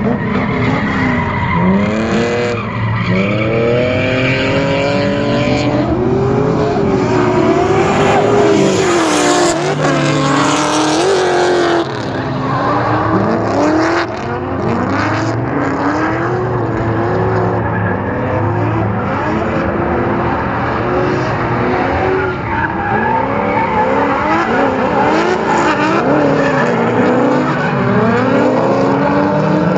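Drift cars sliding under power: their engines rev hard, the pitch swinging up and down without a break, over tyre squeal and skidding. Two or more engines overlap.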